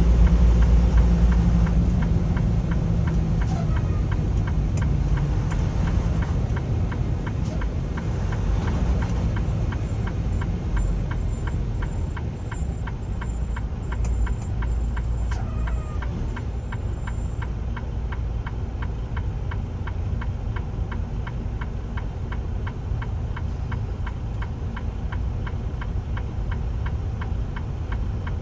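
A car's turn-signal indicator ticking at a steady even rate inside the cabin, over low vehicle rumble. The rumble is strongest in the first few seconds and eases as the car slows and stops in traffic.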